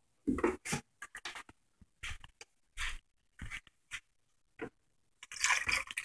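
A plastic water jug knocks and bumps a few times as it is handled over the counter. About five seconds in, water starts pouring from the jug into a blender jar.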